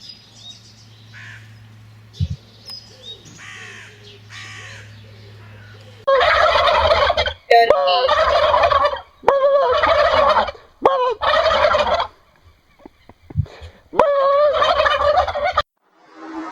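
Turkey gobbling in five loud bursts, each about a second long, starting about six seconds in. Before that there are only faint bird calls over a low hum.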